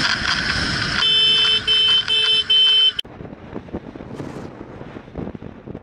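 Vehicle horn sounding four short blasts in quick succession over engine and road noise. About three seconds in the sound cuts off sharply to a quieter, even engine and wind noise from a moving motorcycle.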